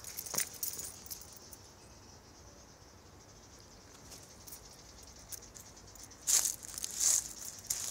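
Steady high-pitched drone of insects, with a few short rustles; the two loudest rustles come near the end, about a second apart.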